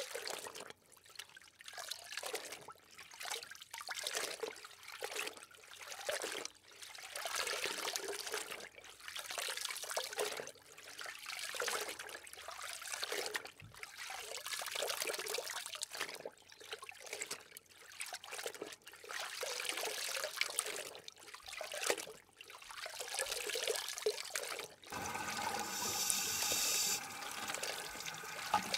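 Water sloshing and bubbling, a rushing noise that swells and fades every second or so. About 25 s in, the sound changes, with a few steady tones running through the noise.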